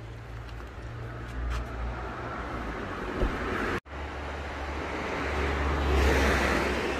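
Outdoor street noise: a steady low rumble and hiss of traffic, cutting out for an instant just under four seconds in, then swelling louder near the end as a vehicle passes.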